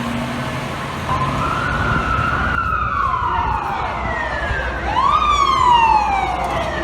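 A fire truck's siren winds up and then slowly falls in pitch, twice. The second wind-up, about five seconds in, is the loudest part. A steady low engine and street noise runs underneath.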